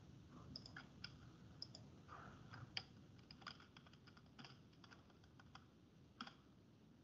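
Faint, irregular clicking of a computer keyboard and mouse.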